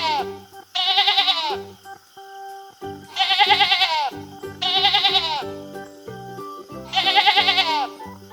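Sheep bleating repeatedly: four wavering calls of under a second each, with the end of another at the very start, over light background music.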